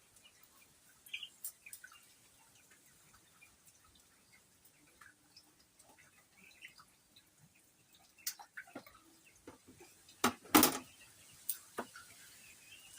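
Scattered small clicks and taps, with a sharper knock about ten and a half seconds in.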